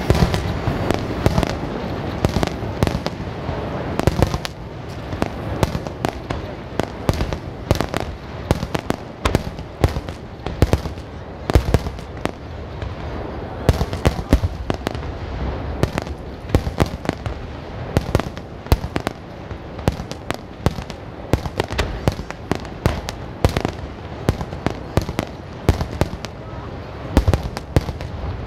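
Fireworks display: a dense barrage of firework shells bursting, many sharp bangs a second in quick succession over a continuous rumble. One especially loud bang falls about a third of the way through.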